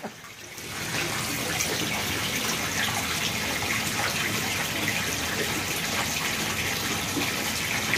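Steady rush of running water, as the pond filter's return flow pours from a PVC pipe into the pond. It comes up over the first second and then holds even.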